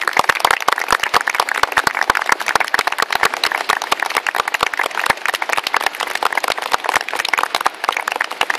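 A small group applauding, with a steady stream of sharp individual hand claps, some very close by.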